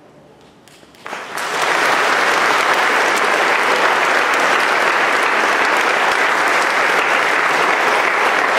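Audience applause: after a second of near hush it breaks out about a second in, builds quickly, and carries on as steady, full clapping.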